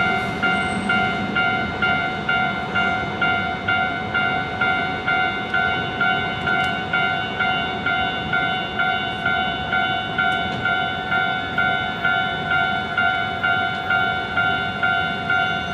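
Japanese level-crossing warning bell ringing steadily, about two strikes a second.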